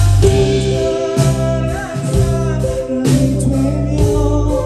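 Live band playing a slow song, with a male singer singing into the microphone over a heavy bass line and sustained chords. Crashes from the drum kit land roughly every two seconds.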